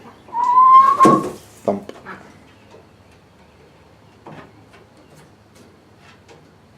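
A heavy chicken lands with a thump about a second in, under a short rising cry, and a softer knock follows just after. Then only faint small clicks.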